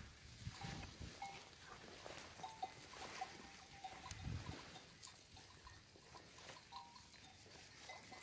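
A flock of sheep grazing, with bells on the sheep clinking in short rings now and then. There are a few low thuds, the strongest about four seconds in.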